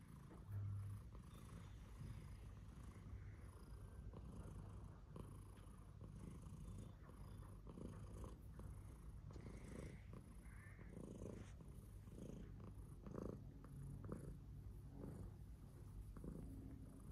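Long-haired tabby cat purring steadily and faintly while being stroked.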